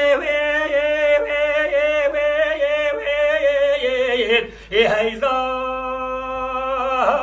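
A man's solo voice singing a Kurdish dengbêj song without accompaniment. He ornaments long drawn-out notes, pauses for a breath about four and a half seconds in, then holds one long steady note.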